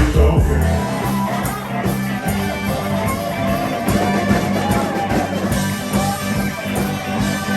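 Live band music led by guitar, with a steady beat.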